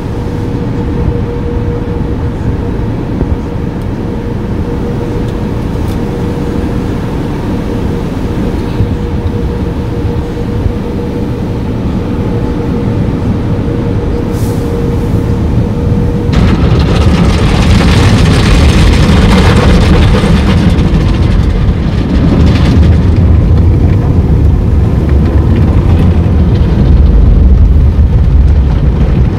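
Automatic tunnel car wash heard from inside the car: a steady low rumble with a faint steady hum. About halfway through, a louder rush of water and foam spraying onto the windshield and body comes in and keeps on.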